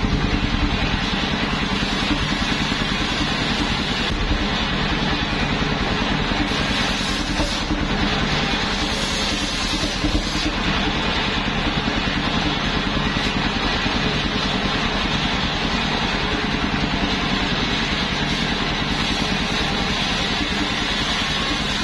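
Engine of a homemade truck-mounted circular sawmill running steadily under load while the large circular blade rips planks fed through it. The blade's cutting hiss rises over a few stretches.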